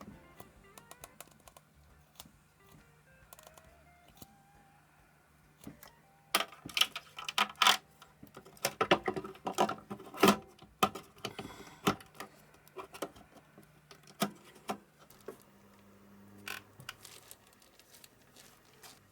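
Irregular sharp metallic clicks and clinks of small parts and tools being handled, coming in a dense flurry in the middle and then more sparsely, over a faint steady low hum.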